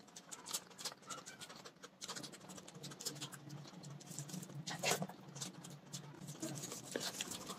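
Close-miked eating sounds: wet chewing and lip-smacking clicks, with fingers squishing and mixing curry-soaked rice on a plate. There are many short sharp clicks, the loudest about five seconds in.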